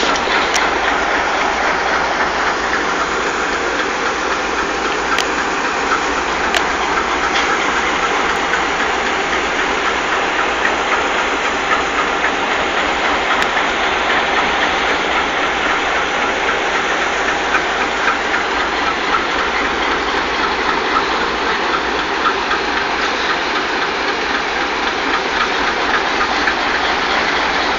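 Pair of GE U20C diesel-electric locomotives idling while stopped: their 12-cylinder diesel engines give a loud, steady running sound.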